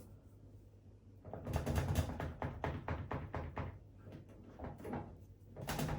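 A run of quick rattling knocks, metal against the washing machine's casing, as a transit bolt is worked loose with an adjustable spanner; a few more knocks follow near the end.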